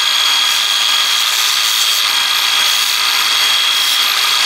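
Cordless angle grinder with a sanding pad running steadily with a constant high whine, sanding a chainsaw chain to take off edges that mushroomed out when the chain was thrown.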